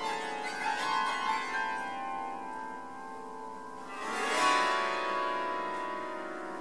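Prepared grand piano with its strings sounded directly by hand inside the case, plucked and left ringing. A cluster of strokes comes in the first second or so, and a louder stroke about four seconds in rings on and slowly fades.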